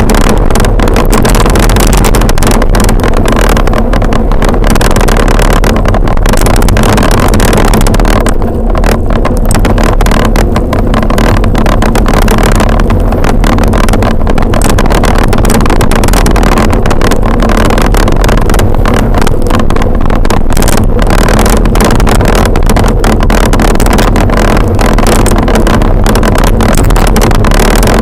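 Loud, steady wind buffeting on a bike-mounted action camera's microphone, from riding downhill at about 15 to 22 mph, with rapid flutter.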